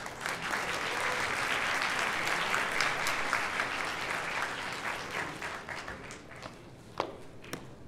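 Audience applauding, loudest for the first few seconds and then dying away, with a single sharp knock near the end.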